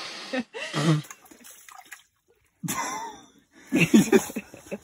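Wordless vocal exclamations from the people handling a fish, with brief splashing of water in the hole in the ice.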